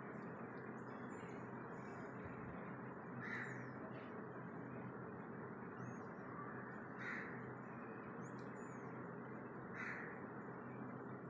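A crow cawing three times, a few seconds apart, with a few high bird chirps, over a steady background hiss.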